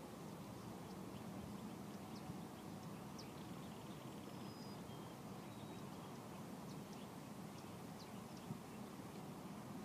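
Faint outdoor ambience: a steady low rumble with scattered short, faint high chirps and ticks.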